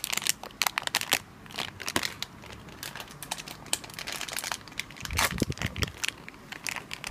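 Blind-box packaging being torn open and handled: irregular crinkling and crackling of cardboard and wrapping.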